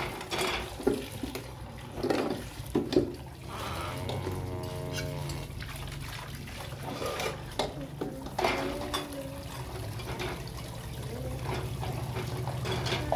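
Dishes being washed by hand: running water splashing, with sharp clinks of plates and utensils in the first few seconds. A voice sounds now and then.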